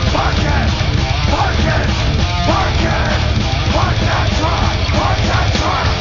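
Heavy metal music: a rock band playing loud and dense, without a break.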